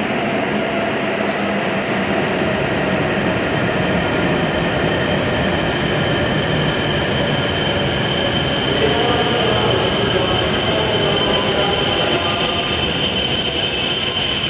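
E7-series Shinkansen train rolling slowly into the platform and braking toward a stop: a steady rumble of the passing cars with a high tone held throughout. Squealing tones come in over the last several seconds as it slows.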